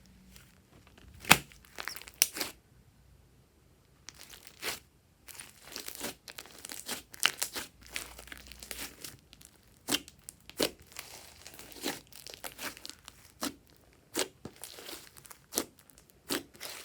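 Slime being kneaded and stretched by hand: irregular sticky pops and crackles, with one sharp snap about a second in and a brief pause a few seconds in.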